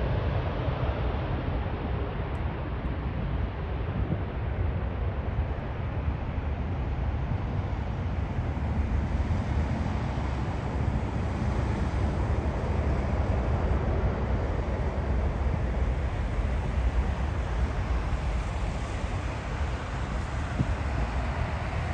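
A Boeing 777 airliner's jet engines rumbling steadily as it rolls out on the runway after landing, mixed with wind buffeting the microphone.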